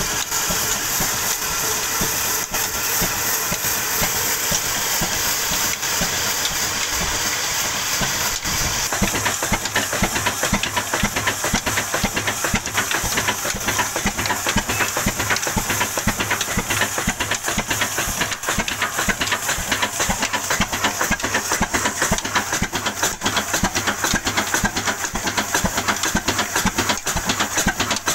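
Belt-driven band saw at a sawmill running through timber, a steady hiss over the drone of its belts and line shaft, powered by a single-cylinder horizontal stationary diesel engine of the Ruston Hornsby type. About nine seconds in, the engine's fast, even exhaust beat comes to the fore.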